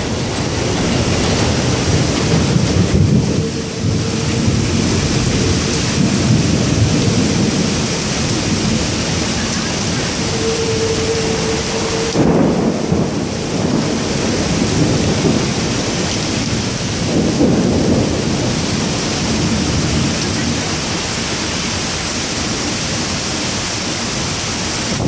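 Heavy thunderstorm downpour: rain pouring steadily, with low rolls of thunder swelling up several times.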